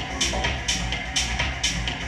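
Techno music from a DJ set, with a steady low beat and a bright hi-hat hit about twice a second.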